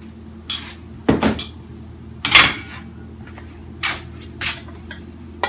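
Metal kitchen utensils clattering: tongs and a metal server knocking and scraping against an enamel stockpot, a cornbread pan and a ceramic serving bowl. There are about six short clatters, the loudest about two and a half seconds in.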